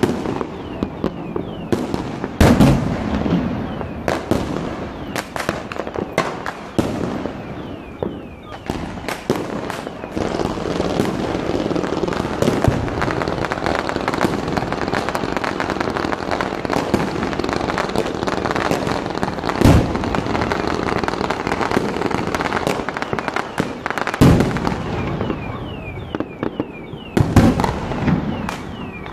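Fireworks display: repeated sharp bangs of bursting shells, with a dense, continuous crackling rush from about ten seconds in to about twenty-four seconds.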